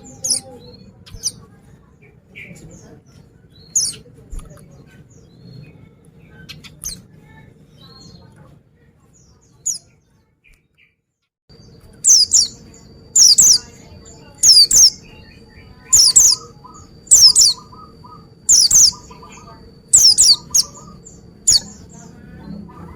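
White-eye (pleci) calling with short, high chirps. Scattered chirps come first, then a brief drop-out about halfway. A run of about nine loud, sharp high calls follows, a little over a second apart.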